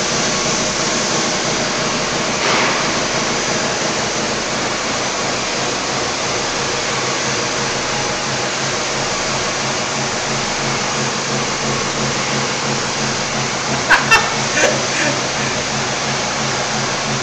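Corded electric hair clipper buzzing steadily as it is run over a man's mustache and chin, trimming off the facial hair.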